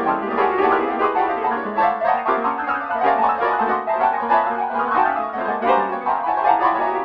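MIDI piano playing a dense, rapid stream of overlapping notes in an irregular rhythm.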